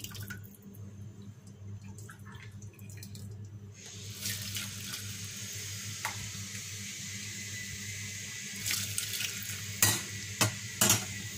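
Chicken bone broth poured through a stainless steel mesh strainer into a pot, running steadily from about four seconds in. Near the end a metal ladle clinks against the strainer three times as the bones are pressed.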